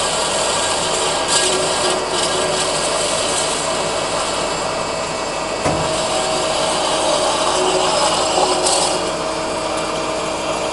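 Cosen double column horizontal bandsaw cutting through a piece of wood on its automatic cycle: a steady rasp from the blade over the saw's steady machine hum. There is a single short knock a little past halfway.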